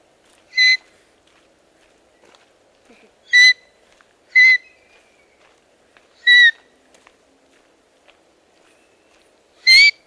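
Five short, loud whistled notes, each a fraction of a second, spaced irregularly, some ending in a slight rise or fall in pitch.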